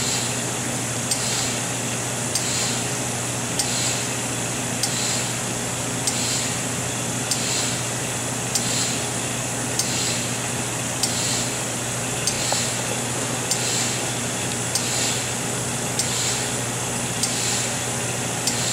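ATV SRO 702/704 reflow oven running in its cool-down step, lamps off, with nitrogen flowing through the chamber: a steady hum and hiss, with a short click and burst of hiss repeating evenly about every 1.2 seconds.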